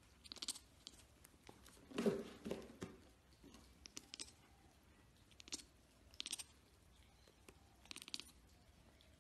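Young kitten hissing in short, faint puffs, about six times.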